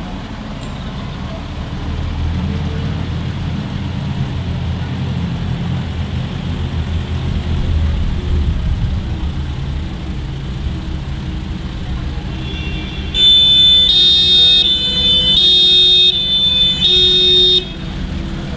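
Old military trucks driving slowly past with a low engine rumble. About thirteen seconds in, a vehicle horn sounds a quick run of about six loud toots.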